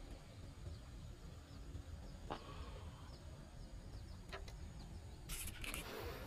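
Faint outdoor background: a low wind rumble on the microphone, a few faint bird chirps and small clicks from fishing tackle being handled. Near the end comes a brief rustling scrape as a hand brushes close to the camera.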